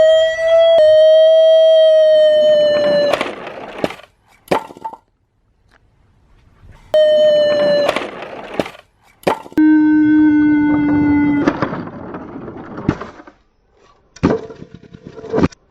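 Toy ambulance's electronic sound siren: buzzy beeping tones, one long, one short, then a lower one, with plastic clattering and several sharp knocks between them.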